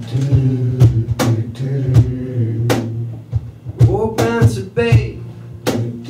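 Acoustic band music: a bass guitar holding low notes under wordless vocal sounds into a microphone, punctuated by sharp percussive hits roughly every half second to a second.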